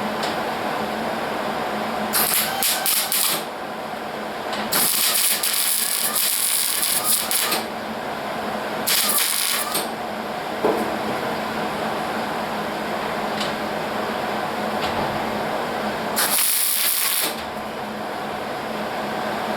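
Hobart Handler 140 110-volt MIG wire-feed welder's arc crackling in four short bursts as tack welds are laid on sheet steel; the first burst stutters, the longest lasts about three seconds. A steady hum runs between the bursts.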